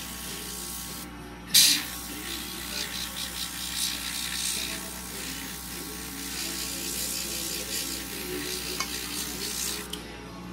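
Airbrush spraying paint with a steady hiss that cuts off briefly about a second in and again near the end, restarting with a sharp burst of air.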